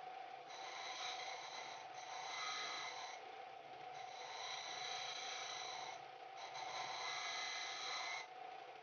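Bench disc sander running with a steady hum while a small metal part is pressed against the spinning disc in four grinding passes of one to two seconds each, with short breaks between, rounding over the part's edges.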